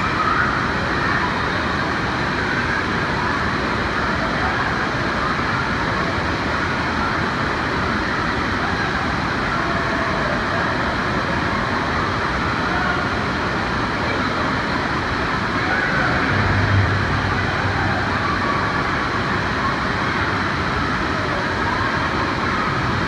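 Echoing din of an indoor water park: a steady wash of water noise with many distant voices mixed in, and a brief low hum about two-thirds of the way through.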